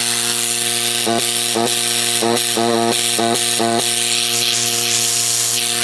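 Gast 23-series rotary vane compressor (septic aerator) running on its electric motor, a loud steady hum with a hiss over it, being checked for vacuum with a thumb over its port. Running this loud means the rebuilt pump is tightened up and making good vacuum and pressure.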